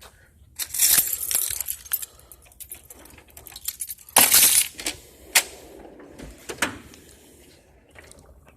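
Drawers of a large Cornwell roll-away tool box sliding open and shut, the tools inside clinking and rattling against the metal. Two longer rattling bursts, about a second in and again about four seconds in, with sharp clacks after.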